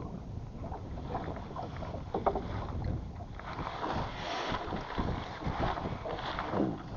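Water splashing and lapping around a small boat, with irregular light knocks and handling noises and no speech.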